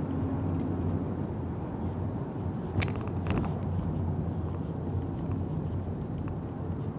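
Car driving slowly, heard from inside the cabin: a steady low rumble of engine and tyres. A sharp click comes near the middle, followed by a fainter one.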